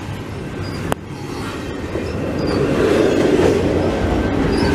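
Canadian Pacific double-stack container freight train rolling past, its cars and wheels on the rail making a steady rumble that grows louder after about two seconds. A single sharp click about a second in.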